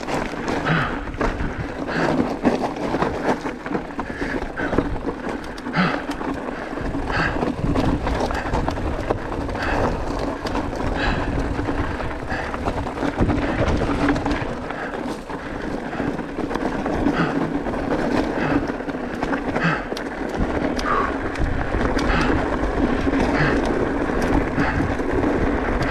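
Mountain bike riding down a rocky trail: a steady rumbling rush from tyres rolling over loose stones, broken by frequent sharp knocks and rattles as the bike hits rocks.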